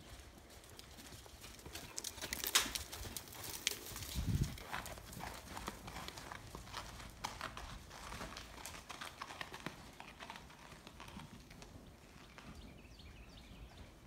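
Hoofbeats of a horse trotting on sand arena footing, loudest in the first half and fading near the end, with a low thump about four seconds in.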